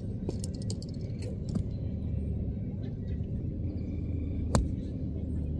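A golf club strikes a ball with a single sharp crack about four and a half seconds in, over a steady low rumble. Several fainter clicks from other swings come in the first second and a half.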